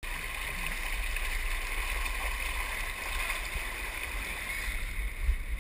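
Water rushing steadily down an open flume body slide as a rider slides through it, with a low rumble underneath.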